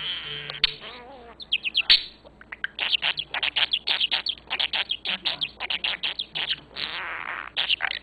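Budgerigar warbling and chattering: a rapid run of short chirps and clicks, several a second, with a couple of scratchy, rasping stretches mixed in.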